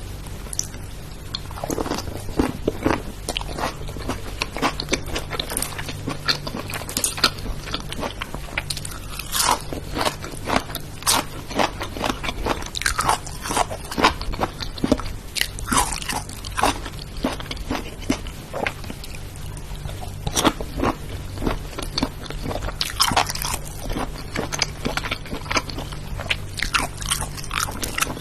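Crunchy food being bitten and chewed close to the microphone: irregular crisp crunches throughout, over a low steady hum.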